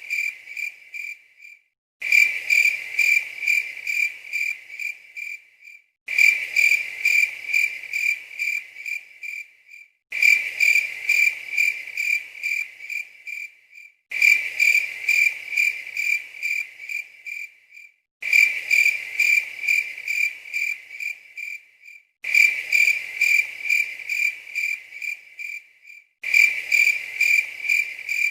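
Cricket chirping sound effect: an evenly pulsed, high chirping at one pitch that fades over a few seconds, then cuts off and restarts every four seconds, a short recording looped over and over.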